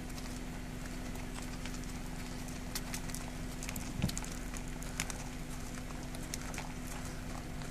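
American bison hooves clopping on the road shoulder as it walks, a few scattered irregular steps, over a steady low hum.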